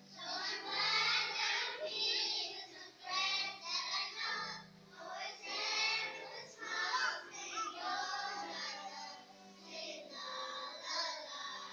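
A children's choir singing a song together in phrases, with a steady low musical accompaniment underneath.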